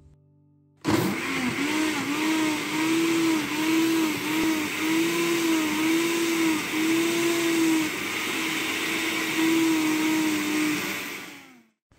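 Countertop blender with a glass jar blending fresh wheatgrass, apples and water into juice. It starts suddenly about a second in, its motor pitch wavering up and down as the contents churn, and it stops shortly before the end.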